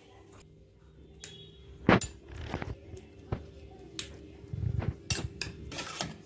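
Metal spoon clinking and scraping against a steel bowl while stirring candied fruit and raisins in caramel syrup. There are a few sharp clinks, the loudest about two seconds in, with softer scrapes between.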